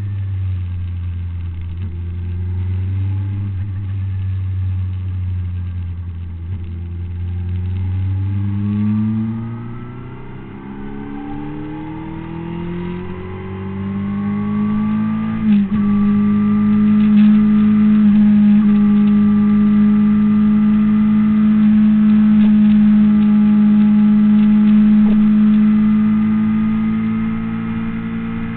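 Honda CBR600RR's inline-four engine heard from the bike itself: running steadily at lower revs, then climbing in revs for about six seconds. After a short click about fifteen seconds in, it holds a steady high-revving drone for about ten seconds and eases off slightly near the end.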